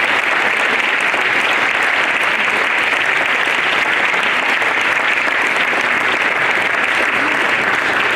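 Audience of schoolchildren and adults applauding, loud and steady, dying away just after the end.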